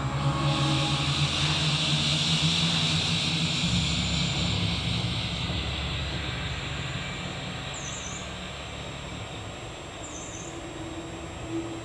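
Electronic sound-installation piece played over wall-mounted loudspeakers: a low drone of several held tones under a band of hiss. The hiss fades away about halfway through, and the whole slowly gets quieter.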